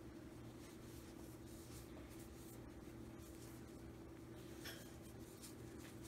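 Faint scratchy rubbing of a metal crochet hook drawing cotton yarn through single crochet stitches, with a few light ticks, over a steady low hum.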